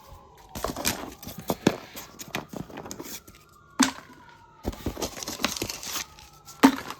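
Handling noise: an irregular run of clicks, knocks and crinkly rustling as small objects and junk are moved about, with a sharper knock about four seconds in.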